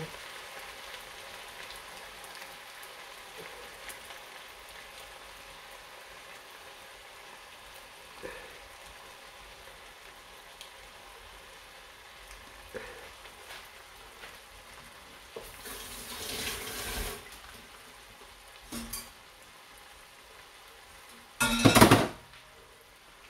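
Chopped octopus and vegetables sizzling steadily in a frying pan, with a few light clicks and a longer rustling noise about two-thirds through. A loud, short noise comes near the end.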